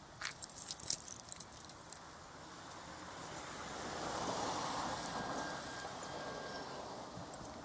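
A car passes by, its tyre and engine noise swelling to a peak about four seconds in and then fading. Before it, in the first second or two, a quick flurry of light, sharp clicks.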